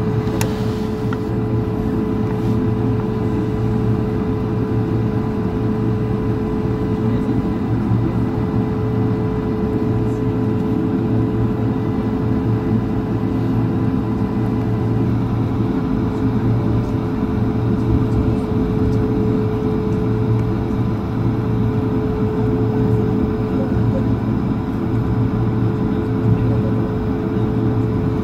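Jet airliner engines and cabin noise heard from inside the cabin while taxiing: a steady, unchanging hum with a constant whine above it.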